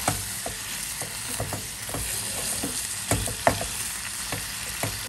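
Sliced pork sizzling in a nonstick saucepan as it is stirred, the spatula scraping and tapping against the pan. A couple of sharper knocks come about three seconds in.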